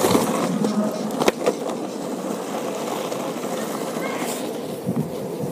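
Small hard wheels rolling over pavement, a steady rolling noise with a few sharp clicks, the strongest about a second in.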